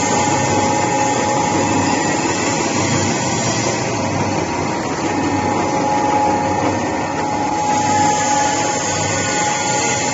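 Electric pet and fish feed extruder running under load, a steady mechanical drone with a constant whining tone held over it.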